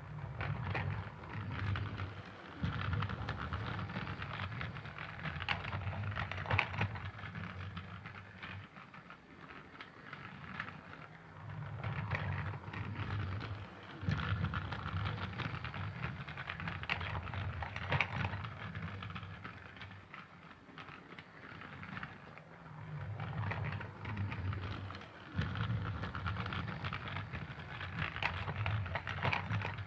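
Thomas the Tank Engine toy train running, a low motor hum with a busy rattle of small clicks; the hum drops away briefly several times, around 9, 14, 22 and 25 seconds in.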